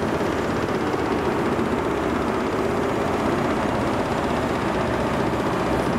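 Diesel train engine running steadily, a constant low drone that neither rises nor falls.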